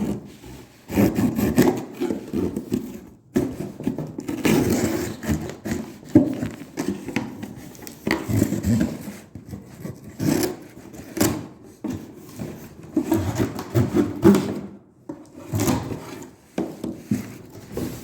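A small cardboard box being opened and handled by hand: irregular scraping and rubbing of cardboard and packing tape, with brief pauses.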